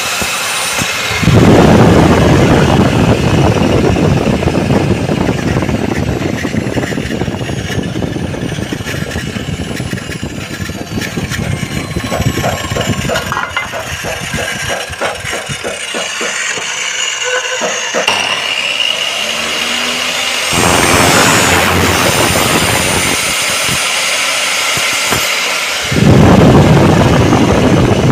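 Aluminium-cutting mitre saw's motor running in spells: it comes up to speed about a second in, winds down in the middle with its whine falling in pitch, and starts up again twice near the end.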